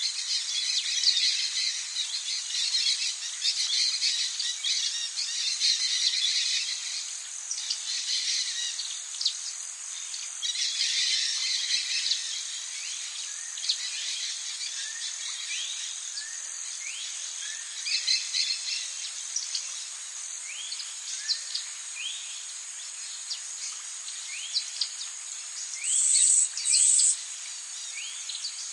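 Forest ambience: many birds chirping and calling in short, repeated rising notes over a steady high-pitched insect drone. Near the end, two short, loud, high buzzes stand out.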